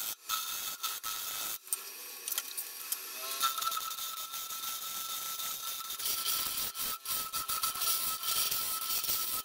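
A hand-held turning tool cutting the face of a wooden disc spinning on a lathe: a continuous hissing scrape, with a steady high whine from the lathe.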